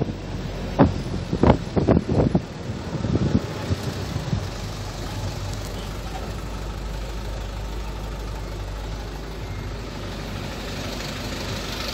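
Car driving, heard from inside the cabin: a steady low hum of engine and road noise, with a few short, loud buffets in the first two seconds or so.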